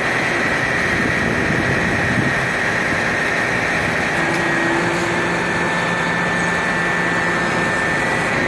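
Crane's engine running steadily, with a thin steady whine above the hum.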